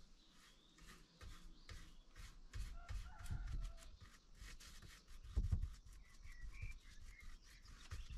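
Bristle paintbrush dabbing and scraping paint onto a hard-coated plastic jug in short scratchy strokes, with a dull knock about five and a half seconds in. A few faint bird chirps sound in the background.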